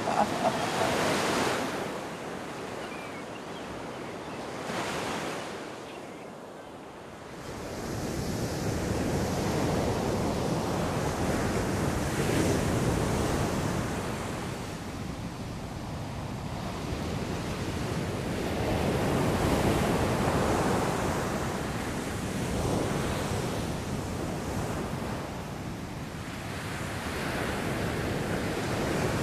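Sea surf breaking on a shore: a steady rush of waves that swells and fades every several seconds, with some wind.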